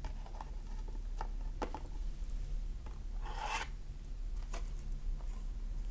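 Tarot cards being handled, as one card is set into a wooden card stand and the next is drawn. Soft rubbing and a few light taps, with one longer sliding rasp a little past halfway.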